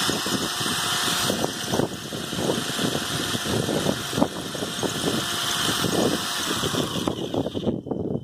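Corded drill-driver running a masonry bit against a plastered concrete pillar, a steady motor whine under rough, uneven grinding and scraping, cutting off shortly before the end. The bit is barely biting: this drill cannot bore into the concrete.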